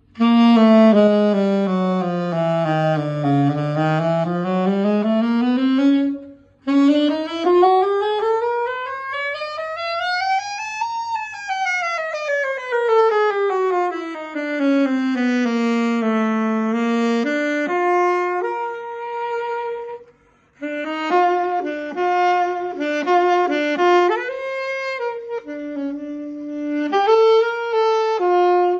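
AS 651 alto saxophone being play-tested: a chromatic scale stepping down to its lowest notes and back up, then after a short break a long chromatic run from the bottom to the top of the range and back down, then, after another short break, a phrase of separate short notes.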